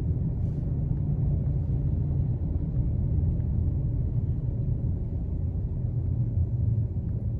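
Steady low rumble of a car driving on city streets, heard from inside the cabin.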